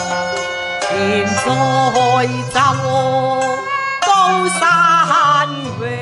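Cantonese operatic song: a woman singing long phrases with wide vibrato over instrumental accompaniment.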